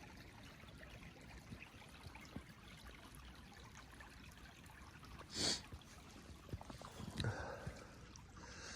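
Faint, steady trickle of a slush-choked creek running under snow. A single brief sharp hiss comes a little past halfway, and small scattered sounds follow near the end.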